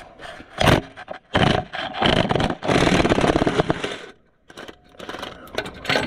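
Metal tools and parts scraping and knocking on an opened-up tractor engine being taken apart. There are a few short scrapes, then a longer scraping stretch of about two seconds, then scattered light clicks.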